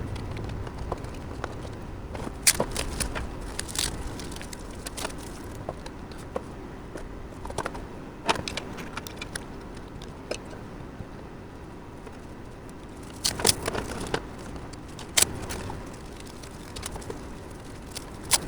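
Irregular clicks, taps and clatter of cables and connectors being handled and plugged into a computer, with the sharpest clicks about two and a half seconds in and a cluster around two-thirds of the way through.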